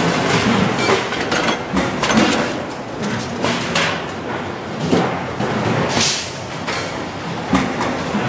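Stainless steel sink bowls clanking and knocking against the steel die of a sheet-metal press as they are loaded and unloaded, with many sharp metal knocks over steady factory noise.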